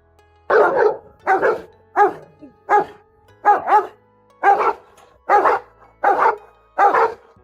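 A dog barking repeatedly in an even rhythm, about ten barks, one every second or less.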